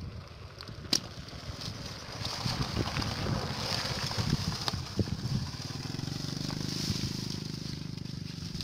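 Wet sloshing and crackling of live catfish wriggling in a basin of muddy water, with a sharp click about a second in.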